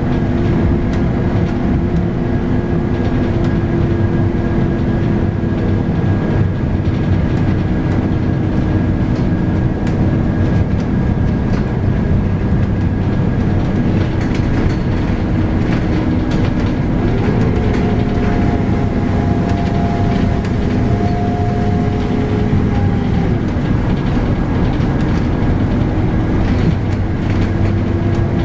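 Scania K310UB bus under way, heard from on board: its 8.9-litre five-cylinder Scania DC9 diesel and ZF Ecomat six-speed automatic run with a steady rumble of engine and road noise and a whine. About 17 seconds in the whine steps up a little in pitch, holds, and drops back about six seconds later.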